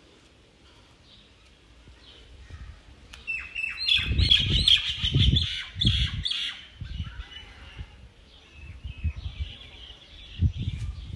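Small birds chirping in a busy run of quick calls starting about three seconds in, then more sparsely, with several low rumbling bursts underneath.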